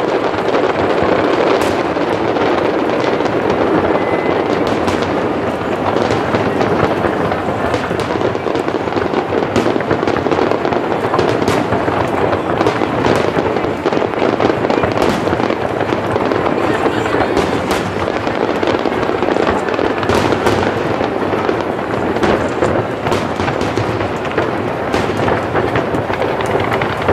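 Fireworks display with many aerial shells bursting in close succession: a continuous, unbroken barrage of booms, dotted throughout with sharp pops and crackle.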